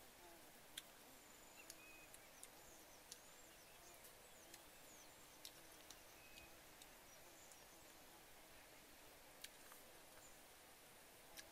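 Near silence: faint rural outdoor ambience with a few faint high bird chirps and scattered small sharp clicks.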